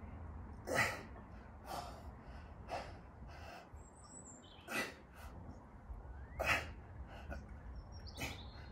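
Sharp breaths out, one with each rep of a barbell overhead press, about six in all a second or two apart. Small birds chirp faintly in the background.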